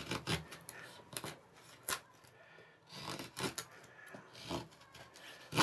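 M390 steel knife blade shaving curls off dry pine across the grain: irregular short scraping strokes with crisp crackles, the loudest near the end. The thin-ground, fine-finished edge is cutting cleanly.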